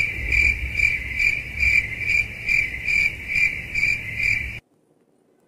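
Cricket chirping sound effect: a steady high chirr swelling in regular pulses a little over twice a second, over a low rumble. It starts abruptly and cuts off sharply about four and a half seconds in.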